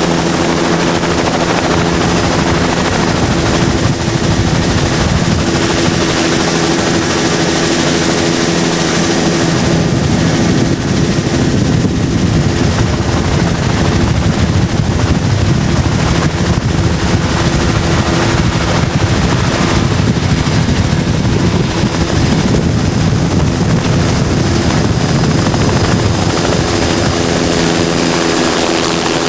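Motorboat engine running steadily at speed, with wind and water noise over it; the low rumble grows heavier through the middle of the stretch, then eases near the end.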